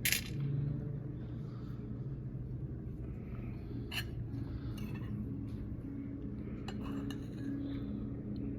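Tableware clinking a few times over a steady low hum: a sharp clink at the start, another about four seconds in, and lighter ones around seven seconds.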